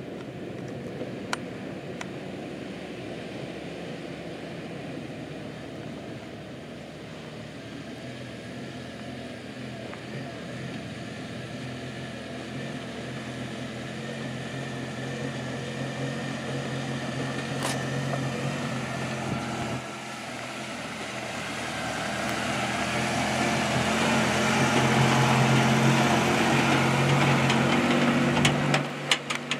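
Toyota pickup truck engine running as the truck drives slowly over a rocky dirt track, getting steadily louder as it approaches and loudest as it passes close by near the end, with a few sharp clicks.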